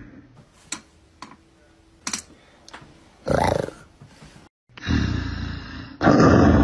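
A few faint clicks and a brief low sound in near-quiet. Then, after a short gap, a loud roar sets in and grows louder about a second later.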